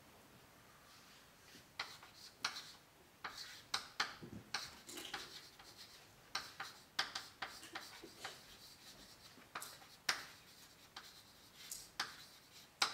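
Chalk writing on a blackboard: a string of irregular short taps and scratches as the words are written, starting about two seconds in.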